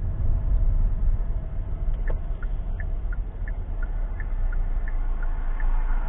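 Car engine and road rumble heard inside the cabin through a dash cam's microphone. From about two seconds in, a turn signal ticks about three times a second, alternating between two pitches, as the car turns at the stop sign.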